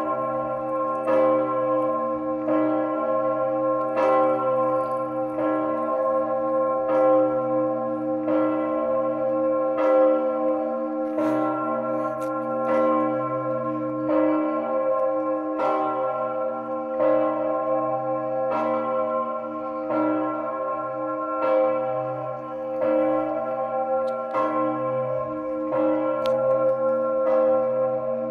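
Augustin, the great bell of the White Tower and the third largest bell in the Czech Republic, swinging and struck by its clapper about every second and a half. Each stroke rings on into a deep, sustained hum that never dies away between strikes.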